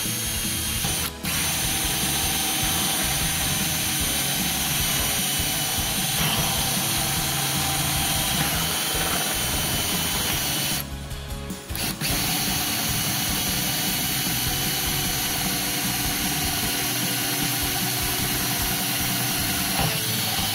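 Power drill with a 1½-inch hole saw cutting through the plastic wall of a water cooler, running steadily. It stops very briefly about a second in and again for about a second around halfway.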